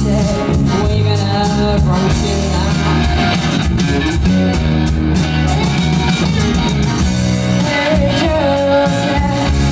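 Rock music with guitar, drum kit and a singing voice, playing continuously.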